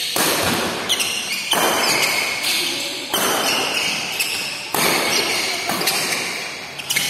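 Badminton rackets striking a shuttlecock in a fast doubles rally: about seven sharp hits at uneven intervals, each ringing out in a large echoing hall.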